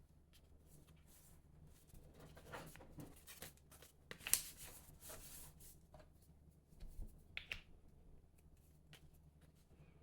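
A sheet of Tant origami paper being folded and creased by hand: soft rustles and small crinkling clicks, with the sharpest crease about four seconds in.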